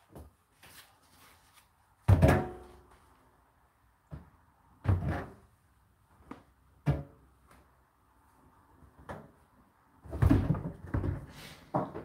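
Knocks and thuds of tumble dryers being handled while laundry is loaded. The loudest comes a bit after two seconds in, with a brief metallic ring. Single knocks follow about five and seven seconds in, then a quick cluster near the end.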